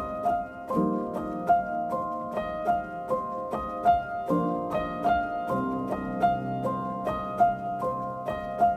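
Background music: a gentle melody of plucked notes over soft lower chords, in a steady, even pulse of about two to three notes a second.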